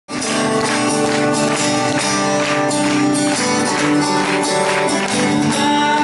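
Live acoustic music: a steel-string acoustic guitar strummed in an even rhythm, with held chords from a harmonica played into the vocal microphone.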